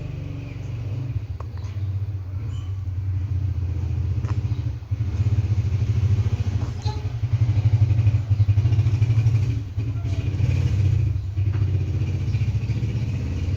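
A steady low engine rumble with a fine pulsing beat, running the whole time.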